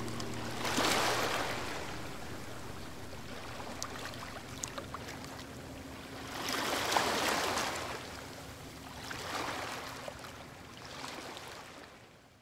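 Small waves washing on a shore, each surge swelling and ebbing every few seconds, fading out at the end.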